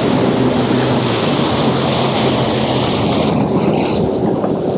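Sea-Doo GTX 300 personal watercraft running under way through choppy water: a steady rush of engine, hull and spray, with wind buffeting the microphone.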